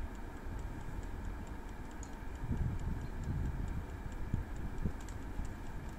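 Prego air fryer running, its clockwork timer ticking about four times a second over the steady hum of its fan, with low wind rumble on the microphone.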